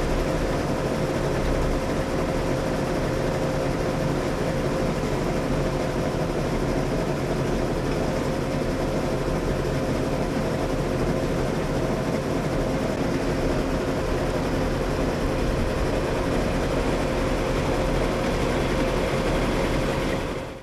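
Motorboat engine running steadily, a constant drone with a thin, steady whine through it.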